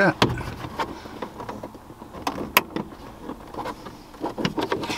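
Scattered plastic clicks and taps from hands and a plastic trim tool working at the overhead console map-light lens of a 2013 Ford F-150, with one sharper click about two and a half seconds in.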